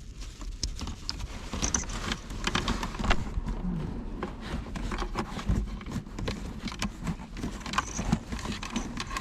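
Plastic interior trim and wiring being handled and fitted back together: irregular rustling with many small clicks and knocks.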